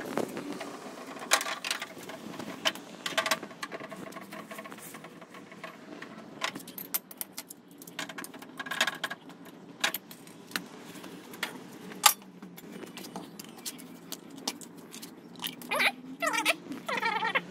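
Irregular metallic clinks and rattles of a socket wrench and extension at the motorcycle's oil drain bolt, with sharp taps now and then. Near the end, a plastic engine-oil bottle cap is twisted open.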